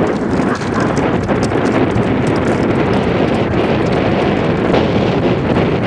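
Wind buffeting the camera microphone as a steady, loud rumbling hiss, with a few faint clicks.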